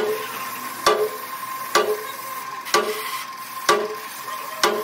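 Compressed-air solvent spray gun hissing as it sprays cleaning fluid, with a faint steady whine under it. A sharp click comes about once a second.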